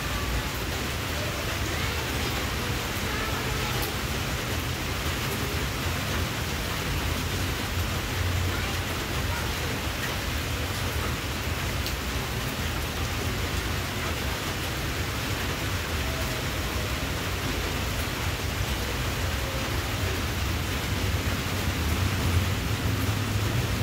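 Steady hissing background noise with a low rumble underneath, unchanging throughout.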